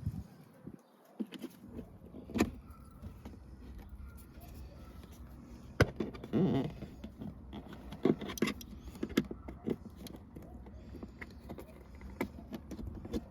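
Scattered clicks and light knocks of hands handling plastic car trim, clips and wiring during an installation, with a rustling scrape about six seconds in, over a steady low hum that starts about two seconds in.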